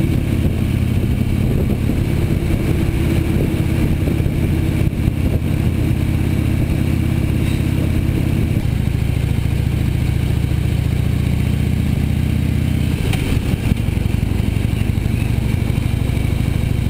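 Harley-Davidson V-twin motorcycle engine running under way, heard from the rider's seat; its note changes twice along the ride.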